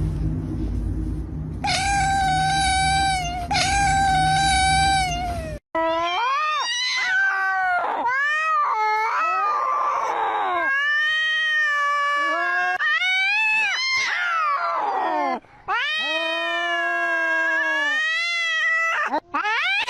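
Cats yowling in long, drawn-out calls. First come two level, held yowls over a low rumble, then a run of wavering yowls that rise and fall in pitch.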